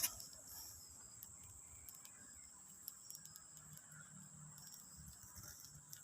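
Faint, steady high-pitched insect chirring, with a few soft clicks.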